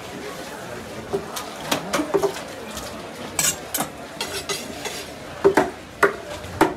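A cleaver and knife knocking and clinking against a wooden chopping block while fish is cut: about eight sharp, irregular knocks.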